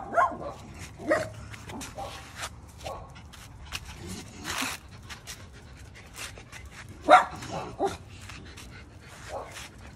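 Small dogs barking during play: short, scattered barks and yaps, the loudest cluster about seven seconds in.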